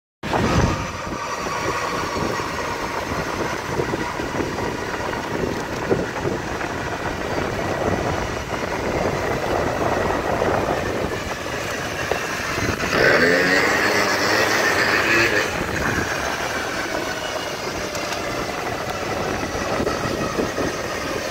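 Moped engine running at steady road speed, with wind rushing over the microphone. About 13 seconds in, a louder whine rising in pitch stands out for a couple of seconds.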